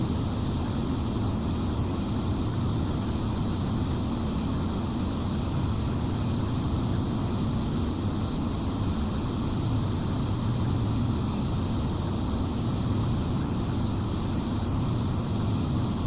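Broadcast transmitter's cooling blowers running: a steady, even rush of air noise, heaviest in the low range, with no change in pitch or level.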